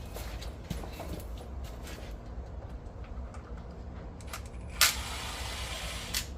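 Handling noises as the back cover is taken off a 2x72 belt grinder: scattered small clicks and taps, and one sharp knock about five seconds in.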